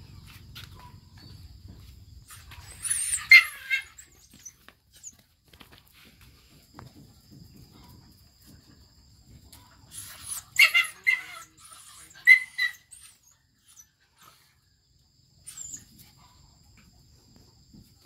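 Two bouts of high-pitched yelping and squealing from a dog and a pet monkey tussling: a short one about three seconds in, then a longer run of calls from about ten to twelve and a half seconds in, with faint scuffling between.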